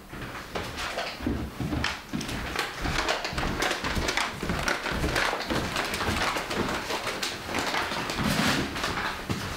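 Someone moving about a kitchen and handling things at the counter: footsteps, rustling and many small knocks and clatters.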